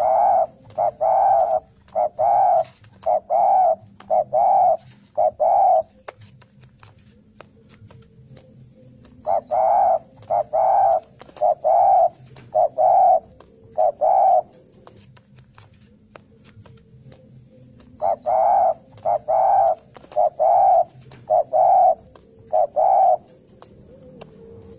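Spotted dove (derkuku) cooing in three bouts of several evenly spaced notes each, with a pause of a few seconds between bouts. It is the 'narung' challenge song that a male gives when looking for a rival.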